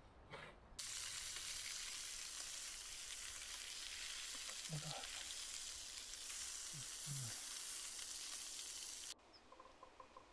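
Fish frying in a pan, a steady sizzle that starts abruptly about a second in and cuts off abruptly near the end.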